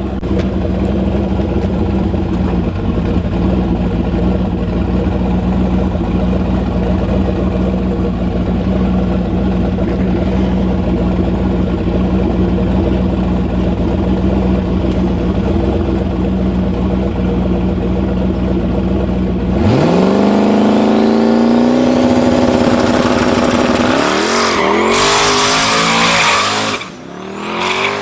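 Turbocharged, LS-swapped Fox-body Mustang's V8 idling steadily while staged, then launching about twenty seconds in: the engine revs sharply up and holds high as the rear tyres spin on the dusty surface, and the car pulls away until the sound drops off at the very end.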